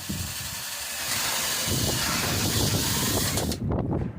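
A power tool running with a steady hissing noise that starts abruptly and cuts off about three and a half seconds in.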